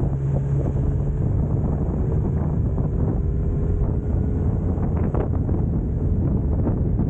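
Wind buffeting the microphone of a moving Suzuki Katana motorcycle, with the engine running steadily underneath.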